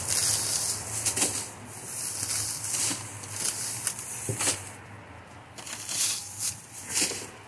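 Plastic bags rustling and crinkling on and off as food is handled in a refrigerator, with a few light knocks.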